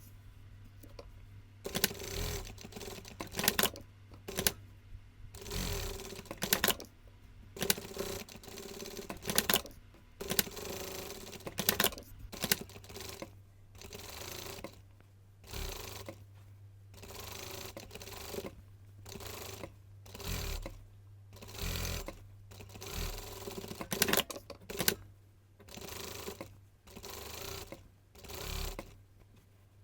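Sewing machine stitching in short runs, mostly under a second and a half each, stopping and starting over and over, over a steady low hum.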